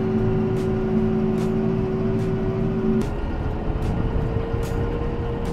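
Tractor engine running steadily while driving on the road, heard from inside the cab, with a steady hum whose pitch shifts slightly higher about three seconds in.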